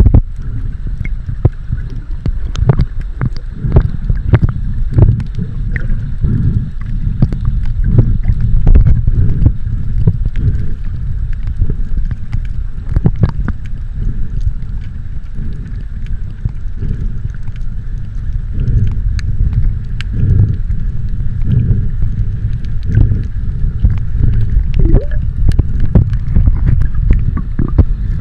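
Muffled water noise as heard by a camera in or at the sea surface: a steady low rush of moving water with many scattered clicks and crackles.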